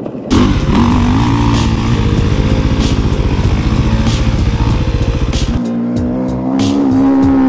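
Enduro dirt-bike engines running under hard throttle: a loud, steady engine first, then, about five and a half seconds in, an engine whose pitch rises and falls as it revs.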